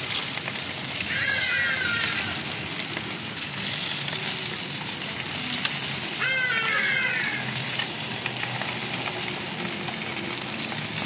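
Glazed char siu meat sizzling steadily on a hot electric grill. Twice, about a second in and again about six seconds in, a brief high-pitched squeak-like sound rises above the sizzle.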